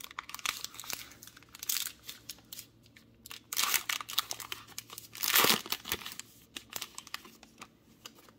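Crinkly foil wrapper of a 2021 Topps Heritage baseball card pack being torn open and crumpled, in irregular crackling bursts, the loudest about three and a half seconds in and again around five and a half seconds.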